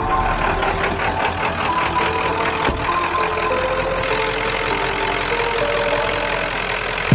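Ford 7.3L Powerstroke turbo-diesel V8 idling steadily with its typical diesel clatter.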